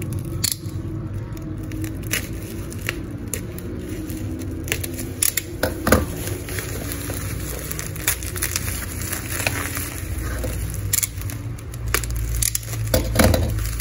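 Plastic bubble wrap crinkling and crackling in the hands, with scattered sharp clicks, as it is handled and slit open with a box cutter.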